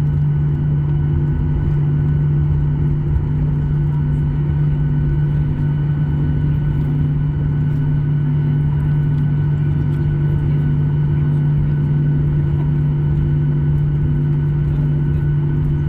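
Boeing 737-800 cabin noise: the jet engines' steady hum, a strong low drone with fainter higher tones and a slow, even beating in it.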